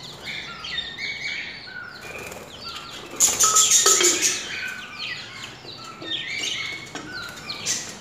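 A flock of budgerigars (Australian parrots) chattering with many quick, overlapping chirps. A loud burst of rapid rustling lasts about a second, starting about three seconds in.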